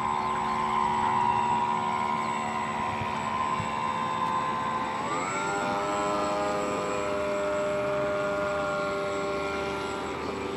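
Single electric motor of a radio-controlled model boat whining steadily under way, rising in pitch about five seconds in as it speeds up, then holding at the higher speed.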